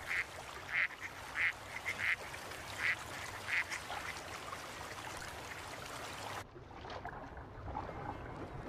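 Ducks quacking: short calls about every half second to a second, fading after about four seconds. About six and a half seconds in the sound abruptly turns dull and muffled, with no more calls.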